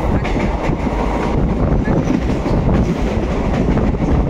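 Express train running on the line: a steady rolling rumble with the wheels clattering over the rail joints.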